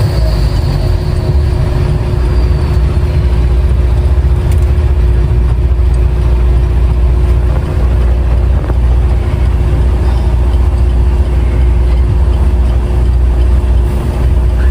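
Truck engine running steadily under load with a deep, continuous rumble, as the truck drives up a steep mountain road.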